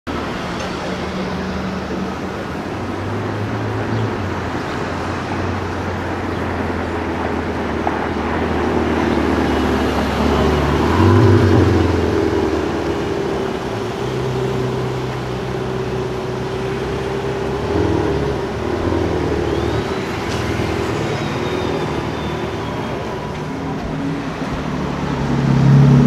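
Sports-car engines running in city street traffic, their pitch shifting in steps, with a short rev about eleven seconds in. Another car's engine grows louder near the end.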